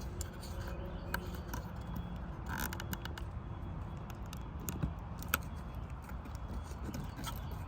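Scattered clicks and rattles of hands working a car horn's plastic wiring connector to unclip and pull it off, the sharpest click about five seconds in, over a steady low rumble.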